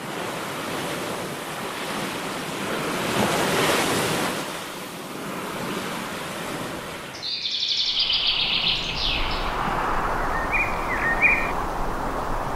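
Ocean surf breaking and washing onto the shore, swelling around three to four seconds in. About seven seconds in a bird gives a rapid, high chirping trill, followed by a couple of shorter chirps near the end.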